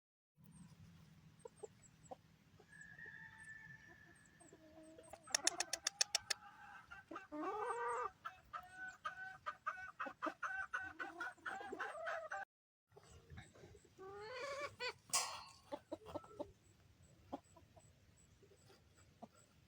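Chickens clucking and calling, with what sounds like a rooster's crow, the sound breaking off abruptly twice as the shots change.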